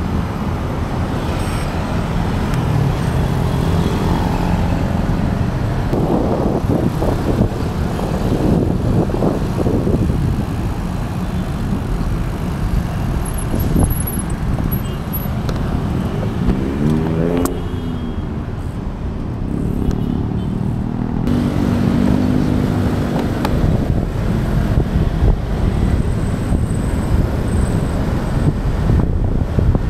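City road traffic heard from a moving bicycle: cars and motorcycles running close by over a steady low rumble of wind on the microphone. Just past halfway, one passing engine sweeps down and back up in pitch.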